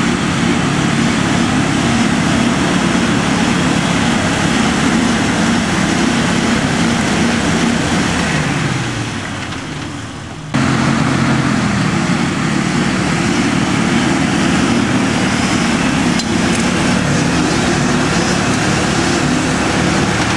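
Jeep Wrangler Rubicon's 4.0-litre straight-six engine revving hard on a steep dirt hill climb, its tyres spinning and throwing dirt. A little before halfway the engine note sags and falls, then it is suddenly back at full revs.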